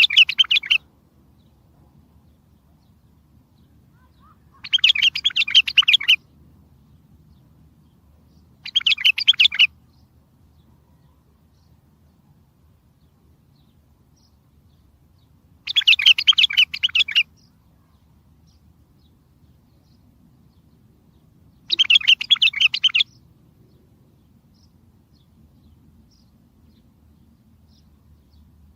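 A bulbul singing short warbled song phrases of about a second each, repeated at gaps of several seconds. It is five phrases in all, the kind of strong song used to call other bulbuls in.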